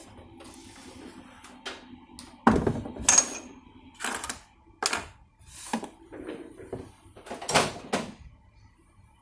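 Irregular clicks and knocks of tools and parts being handled on a workbench while relays are removed from a PLC board, the loudest about two and a half and three seconds in, the second with a brief metallic ring.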